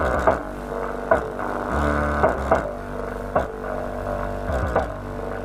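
Bass-heavy music with sustained low notes and drum hits, its sound cut off above the middle range.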